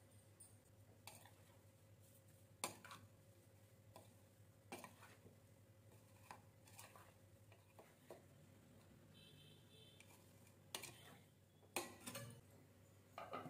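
A spoon clinking and scraping against a bowl while raw prawns are stirred into a spice marinade: scattered, irregular soft knocks and clicks, quiet overall.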